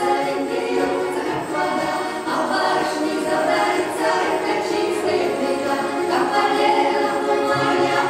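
Three women singing a Russian folk song together in full-voiced harmony, without a break.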